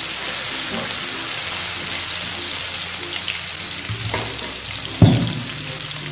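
Chopped onions sizzling steadily in ghee in a frying pan, cooked to the half-brown stage. About five seconds in there is a single sharp knock.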